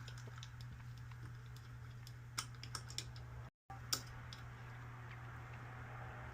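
Scattered light clicks and taps of multimeter test probes being set on components of a treadmill control board, over a steady low hum, with a brief break in the sound about three and a half seconds in.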